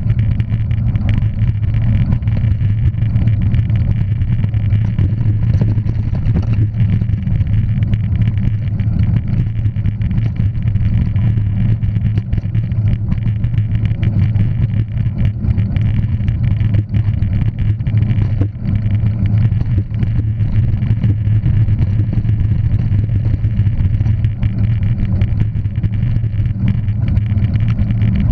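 Motor vehicle running steadily with a low, even drone.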